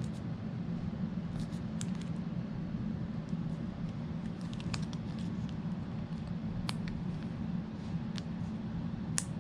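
Light, scattered clicks and taps from AirPods Pro and their silicone ear tips being handled, over a steady low hum.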